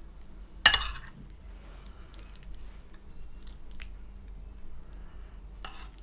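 A person chewing food in a mukbang, with small wet mouth noises and faint ticks, and one sharp click about a second in.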